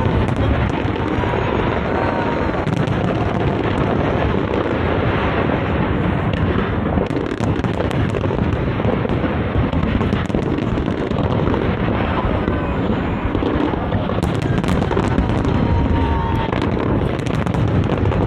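Fireworks display: a continuous barrage of booming shell bursts with dense crackling.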